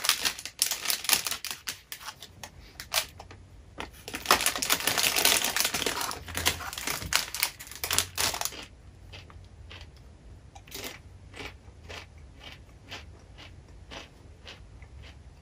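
A chip bag crinkling as it is handled and rummaged in for about the first eight seconds, then sparse, fainter crunches of chips being chewed.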